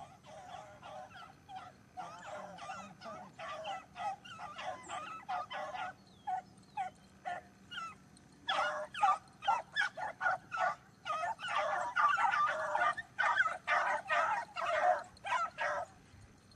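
A pack of beagles baying on a rabbit's trail: many short, overlapping yelping calls. They grow much louder and denser about halfway through.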